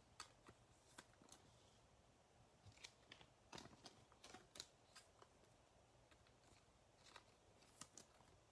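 Faint, irregular soft ticks and taps of trading cards being handled and laid down on a table.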